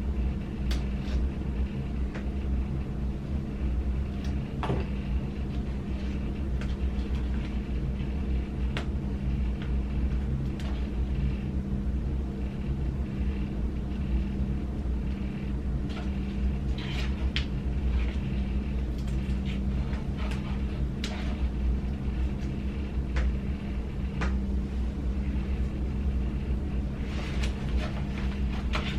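A steady low hum runs throughout. Scattered light clicks and a few brief scrapes, loudest around halfway and near the end, sound like small hand-handling noises.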